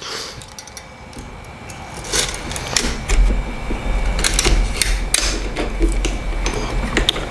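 Light metallic clicks, scrapes and rattles of an AK-pattern 12-gauge shotgun's parts being handled as the recoil spring is fitted back in, with a low rumble underneath from about three seconds in.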